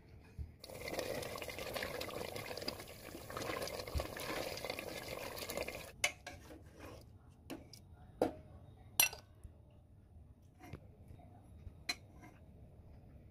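Goat-meat curry cooking in a pot, a steady sizzling hiss that cuts off suddenly about six seconds in. After it come four or five separate sharp clinks of a utensil on cookware.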